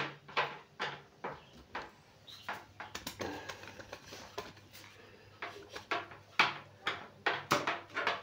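Irregular sharp clicks and knocks of small household objects being handled, the loudest right at the start and a quick run of them in the first couple of seconds.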